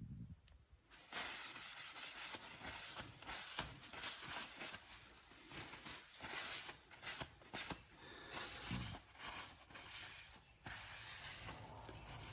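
Irregular rubbing and scraping of hands handling brake parts, with a few small clicks.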